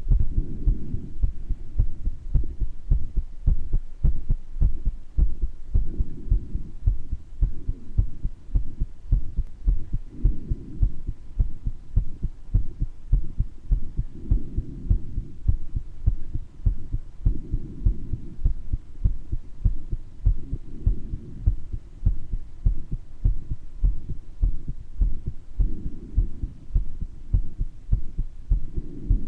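A human heart beating with a murmur, a steady run of low heartbeat thuds. Breathing comes through every few seconds, from a person with mild bronchitis.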